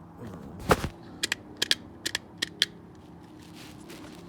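Car turn-signal clicking: sharp clicks at uneven spacing rather than an even blink rhythm, the first and loudest about 0.7 s in, over a steady low hum. The blinker is not working properly.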